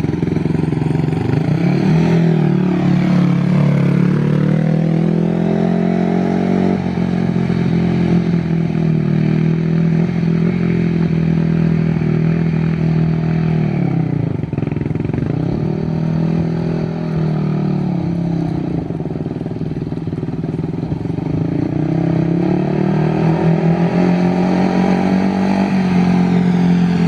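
2005 Yamaha YFZ450 sport ATV's single-cylinder four-stroke engine running under a rider, its pitch rising and falling with the throttle. It dips low about halfway through, then builds again.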